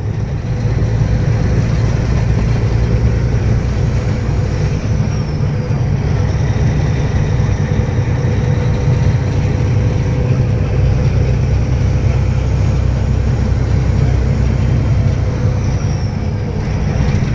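Loaded heavy truck's engine running steadily under load, heard from inside the cab, with a steady low drone and road noise.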